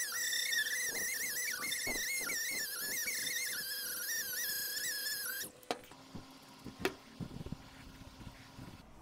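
A small 2-inch die grinder with a unitizing disc polishing a mild steel corner makes a high-pitched whine that wavers in pitch as the disc bears on the metal. It stops suddenly about five and a half seconds in, followed by a few light clicks and handling noise.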